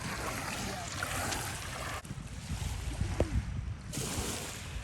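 Outdoor wind noise: an irregular low rumble of wind on the microphone over a steady hiss, with a short faint sound about three seconds in.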